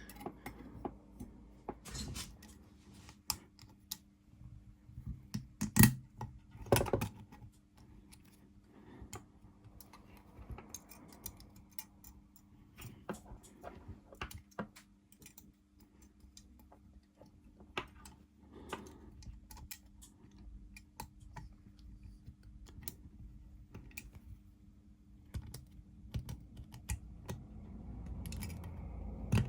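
Irregular small metallic clicks and scrapes as a coil spring is pushed and worked into the groove of a brass lever door handle's mechanism, with a few louder knocks about 2, 6 and 7 seconds in.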